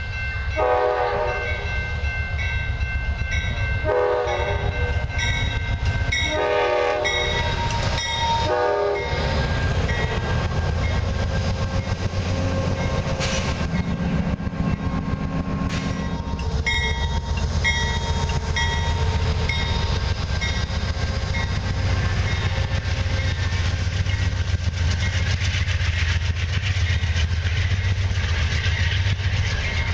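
Amtrak GE P42DC diesel locomotive sounding its horn in four blasts (two long, then two shorter) with a bell dinging, then passing close by. Its Horizon passenger coaches follow with a steady, loud rumble of wheels on the rails.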